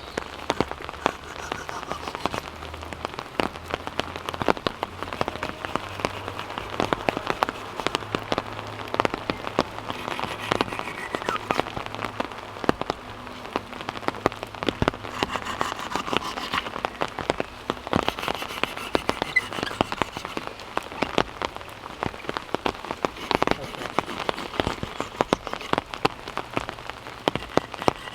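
Rain falling steadily, a downpour, with a constant close patter of drops striking nearby surfaces.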